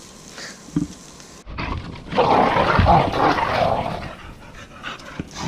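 Dogs growling in rough play, loudest for about two seconds in the middle.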